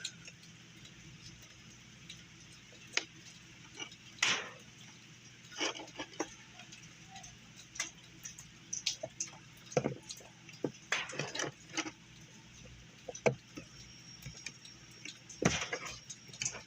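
Irregular light clicks and taps of small hard objects being handled, over a faint steady hum.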